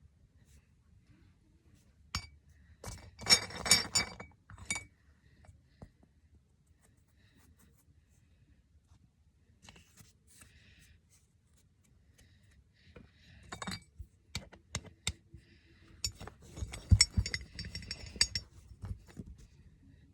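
Clinking and rattling of small hard objects being handled, in two bursts: one about three seconds in and a longer one from about thirteen to nineteen seconds.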